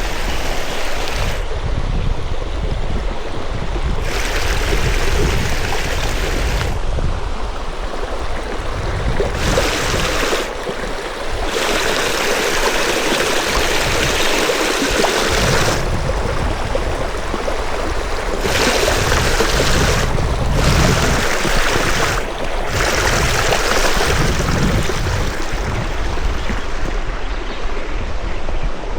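Steady rushing of water flowing in a stream, with an uneven low rumble underneath.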